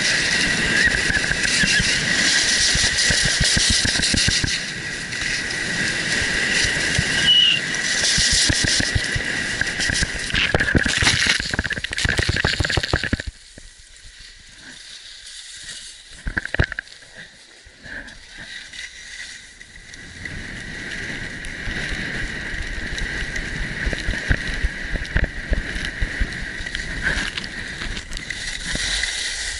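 Rushing wind on the microphone of a camera carried at speed down a ski run, mixed with the scrape and chatter of edges on packed snow, with a steady high whistle throughout. The noise drops suddenly about 13 seconds in and builds back up from about 20 seconds.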